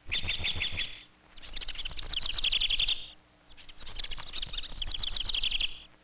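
A songbird singing three trilled songs, each a rapid run of repeated high notes lasting one to two seconds, with short pauses between them.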